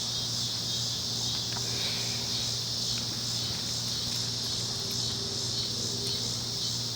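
Steady high-pitched insect chorus, like crickets, over a steady low hum.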